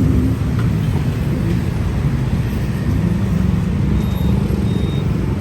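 Steady low rumble of a car on the move: engine and road noise, with no breaks.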